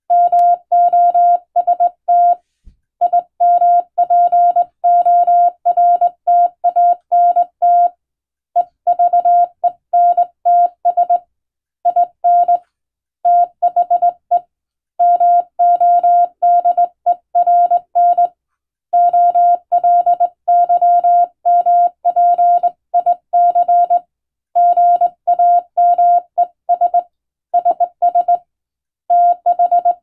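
Morse code sent by hand on a straight key, heard as a single steady-pitched beep keyed on and off in dots and dashes, with short pauses between letters and longer ones between words.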